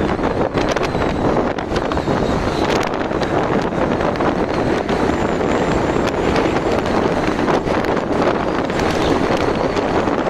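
Wind buffeting the microphone on a moving motorcycle, a loud steady rush with constant flutter, with the bike's running noise under it.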